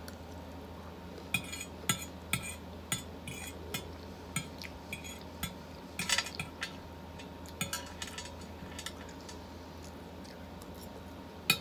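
Metal fork clinking and scraping against a large plate as the last scraps of salad are gathered up: a string of short, sharp clicks, a couple a second, thickest around the middle.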